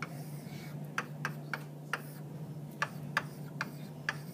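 A run of light, sharp clicks at uneven spacing, about two or three a second, over a steady low hum.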